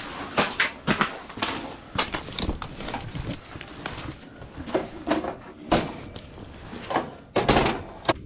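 Irregular knocks, clunks and scrapes of fishing gear and the camera being handled and moved about, with the loudest clunks near the end.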